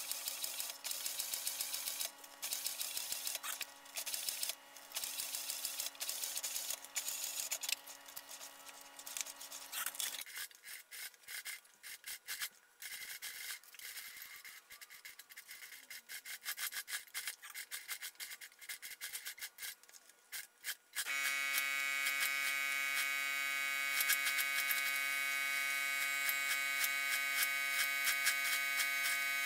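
Industrial sewing machine stitching leather: rapid needle clicks over a steady motor hum, then stopping and starting in short runs through the middle, and running steadily and louder in the last several seconds.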